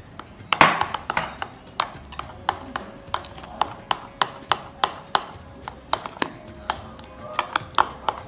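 Metal spoon beating thick mango and flour batter in a glass bowl, clinking against the glass about two to three times a second as milk is mixed in to loosen the batter.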